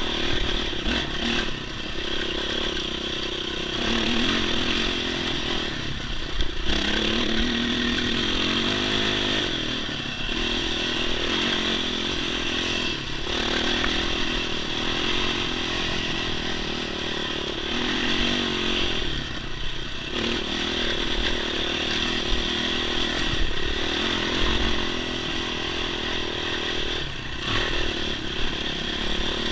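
Dirt bike engine running as it climbs a rocky gravel track, its note rising and falling with the throttle, with loose stones clattering under the tyres.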